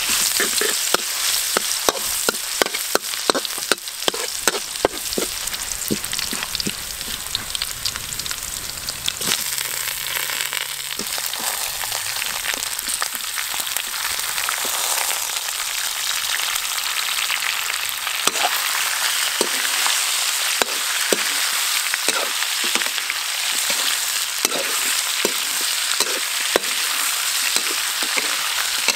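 Oil sizzling steadily in a wok as garlic, lemongrass and then chopped snake pieces fry. A metal spatula scrapes and knocks against the wok in quick runs, in the first few seconds and again through the second half.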